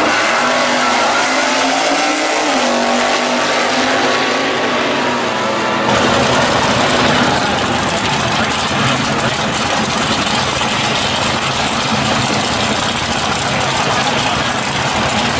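Drag-racing car engines at the starting line. One car launches, its engine note rising over the first few seconds. About six seconds in the sound changes suddenly to a dense, steady engine noise that continues.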